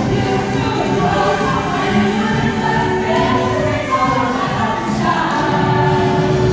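Many voices singing together in chorus with music, held notes overlapping.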